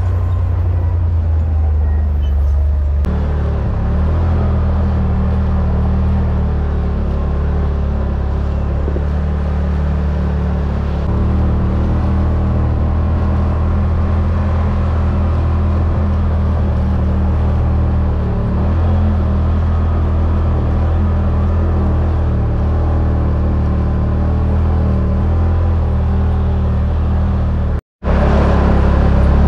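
Side-by-side UTV engine running steadily as it drives along a rough dirt trail, a low even hum throughout. The sound cuts out for a moment near the end.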